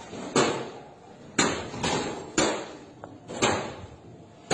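Heavy blows smashing a motorbike: six sharp cracks in about four seconds at an uneven pace, each ringing briefly as it fades.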